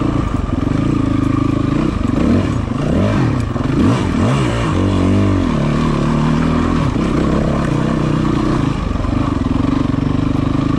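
Yamaha WR450F's single-cylinder four-stroke engine running under way on a dirt trail. Its revs rise and fall several times in the middle as it is throttled on and off, then hold steady.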